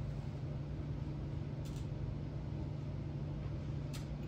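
Room tone: a steady low hum with two faint, short clicks about two seconds apart.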